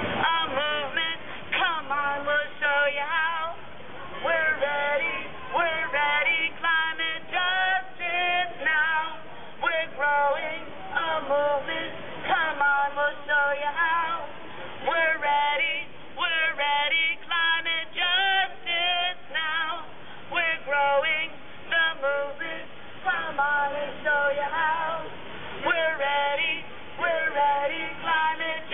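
A crowd of men and women singing together in rhythmic, repeated phrases with short breaks between them.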